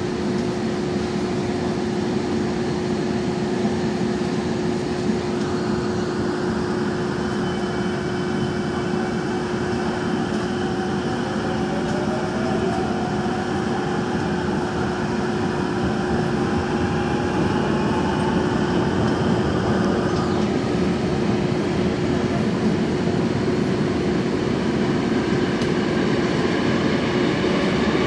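Daejeon Metro Line 1 subway train running underground, a steady hum over the running noise, with a whine that slowly rises in pitch partway through as the train picks up speed; it grows a little louder towards the end.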